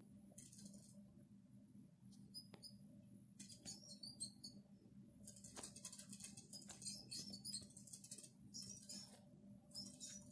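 Faint high-pitched mouse squeaks coming from a TV speaker, in short clusters several times, with a few faint clicks over a low steady hum.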